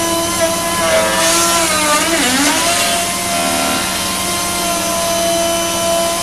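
High-speed router spindle on a Panasonic six-axis robot running with a steady whine as it trims a molded plastic part. About two seconds in its pitch sags and then recovers and holds steady.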